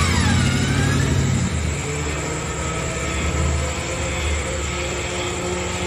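Bushranger REVO 12,000 lb electric winch hauling a vehicle in on its synthetic rope: a steady motor and gear hum, with a higher whine that drops in pitch during the first second.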